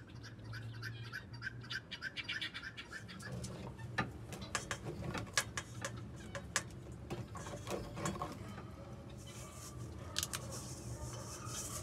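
Handling noise as a clamp-on heat lamp with an aluminium reflector is hung up: irregular clicks, knocks and rubbing. These follow a short run of evenly spaced scraping strokes in the first few seconds, over a low steady hum.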